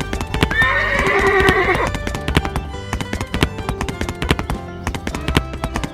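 Background music with a dense run of sharp clicks throughout. An animal call with a wavering pitch starts about half a second in and lasts over a second.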